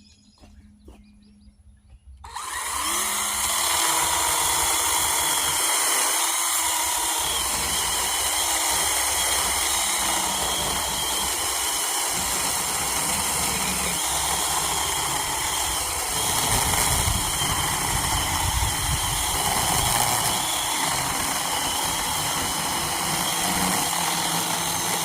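Craftsman V20 12-inch brushless battery chainsaw starting up about two seconds in and running steadily under load as it cuts through a large oak log, a constant motor whine with chain noise.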